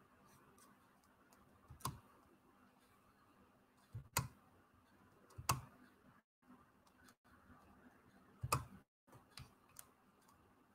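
Scattered clicks and taps of a computer mouse and keyboard as a screen share is set up, a handful of sharper clicks a second or more apart with lighter ticks between, over a faint steady hum.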